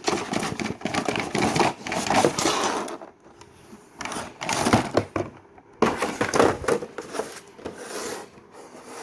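Trimmer packaging being handled and opened: irregular rubbing, scraping and clicking, with short pauses about three seconds in and again just after five seconds.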